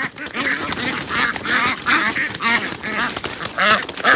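Ducks quacking over and over in quick succession as they are caught, with wings flapping against the pen's netting.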